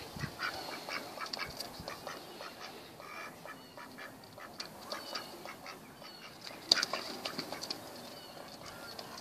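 Mallard drake quacking in short, repeated calls as it tussles with a cat, the loudest call coming about two-thirds of the way through.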